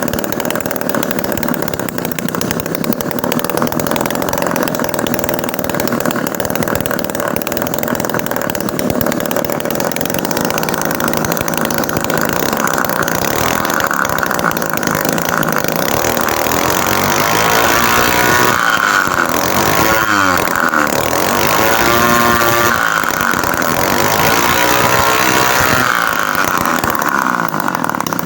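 Homemade miniature two-stroke engine, built from refrigerator compressor parts, running on test. It runs steadily at first, then in the second half its pitch swings up and down several times as the speed changes.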